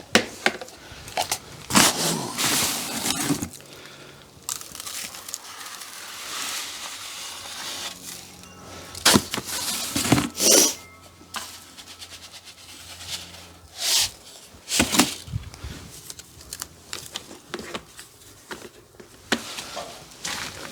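Plastic chick feeders and waterers being handled and set down, a run of sharp knocks and clatters with rustling in between.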